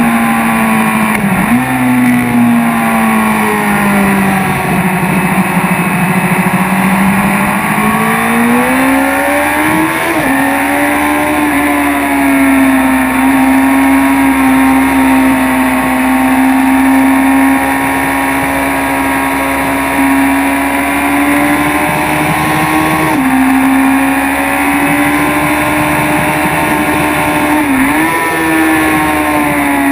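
BMW S1000RR inline-four sport bike engine under load on track, its pitch sagging and climbing as the throttle changes, with brief quick dips about a second and a half in and near the end typical of upshifts while accelerating. Steady wind rush over the helmet camera underneath.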